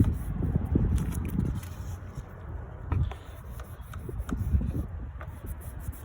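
An alcohol wipe rubbing over a car's body surface to clean it before adhesive tape is applied, with a few scattered light clicks from handling.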